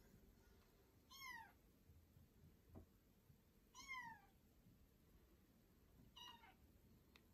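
Kitten meowing from a TV speaker: three short, quiet meows, each falling in pitch, spaced about two and a half seconds apart.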